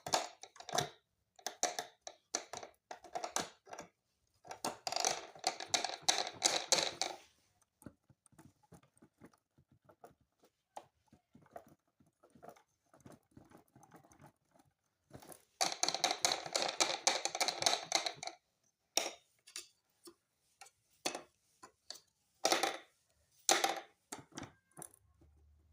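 Plastic clicking and clacking from handling a Casio CDP-100 digital piano's key and hammer mechanism. Scattered single clicks, with two runs of rapid clattering, one about five seconds in and one about halfway through. No piano notes sound.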